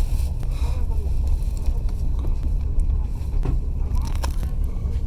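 Passenger train running, heard from inside the carriage: a steady low rumble of wheels on the track, with a few sharp clicks over the rails in the second half.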